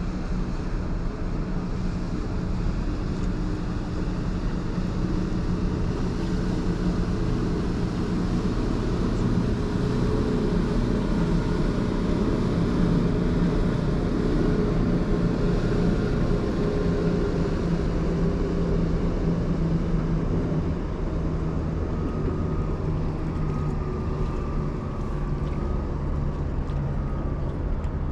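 Steady low drone of a large car carrier ship's engines, with a small motorboat passing at speed around the middle.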